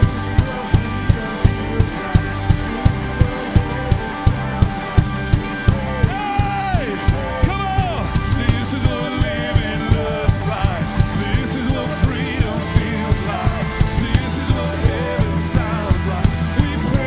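Live worship band playing an upbeat rock song: drum kit keeping a steady beat about two hits a second under bass, guitars and keyboard, with singers' voices coming in about six seconds in.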